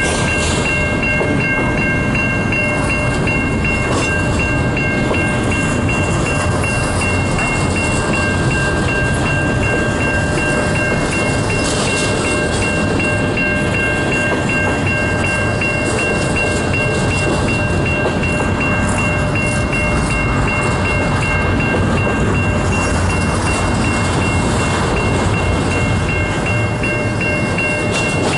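Freight cars of a CN local train rolling past a grade crossing, a steady noise of wheels on rail. Over it the crossing's warning bell rings continuously in quick, even strokes.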